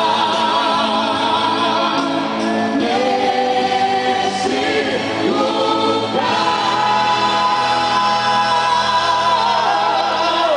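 Gospel song sung by a vocal group over instrumental backing, drawing out its final phrase and settling into a long held note about six seconds in.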